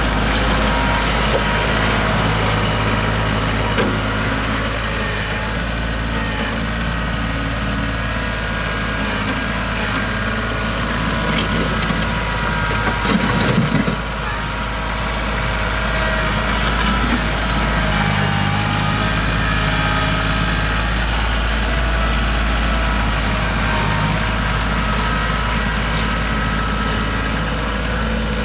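Kioti CK4010 compact tractor's diesel engine running steadily while the tractor manoeuvres in snow. About halfway through there is a brief louder rattle as the front-loader bucket comes down to the ground.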